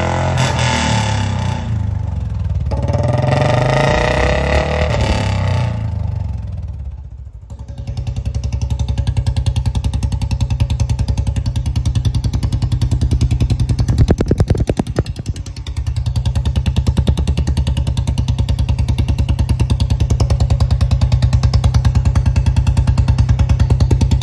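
Royal Enfield Bullet 350's single-cylinder engine, exhausting through a short-bottle silencer, revving up and dropping away about seven seconds in, then idling with an even beat. A short burst of sharp cracks from the exhaust comes about fourteen seconds in.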